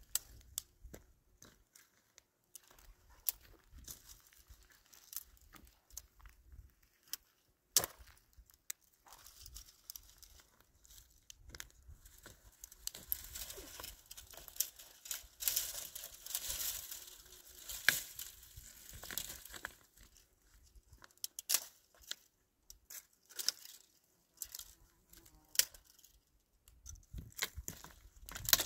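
Crinkling and tearing of a thin material, with many scattered sharp clicks; busiest for several seconds in the middle.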